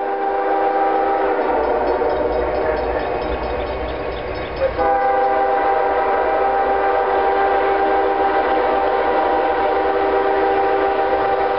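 CSX diesel locomotive's multi-chime air horn blowing a long steady chord as the train approaches, over the low rumble of the engine. The horn breaks off briefly about five seconds in, then sounds again louder.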